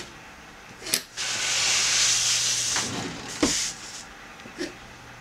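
A large sheet of calligraphy paper sliding and scraping across the table as it is turned, a long even hiss of nearly three seconds, with a click just before it and a sharp knock near its end.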